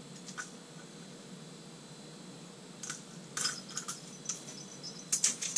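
Short metallic clicks and scrapes of fishing pliers working a hook free from a fish, in quick clusters starting about three seconds in, over a steady low hum.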